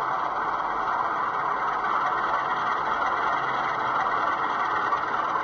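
Sound-fitted model Class 47 diesel locomotive standing still, its recorded diesel engine sound idling steadily.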